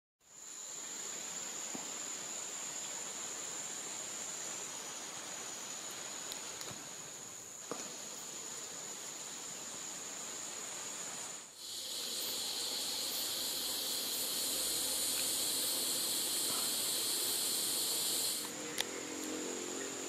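Rainforest insects calling: a steady, high-pitched insect trill runs throughout. About twelve seconds in, a louder, buzzing insect chorus joins and cuts off abruptly about six seconds later. A lower, pulsing call starts near the end.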